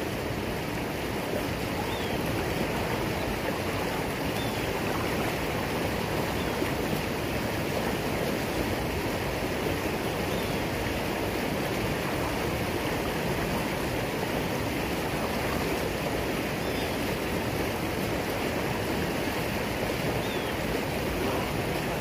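Steady rush of a waterfall's falling water, an even, unbroken roar.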